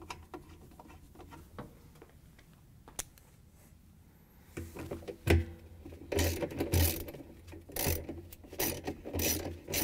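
Ratchet with a long extension and 10 mm socket tightening the bolt on a washer pulsator, the pawl clicking in repeated short strokes that begin about halfway through. Before that, only a single light click.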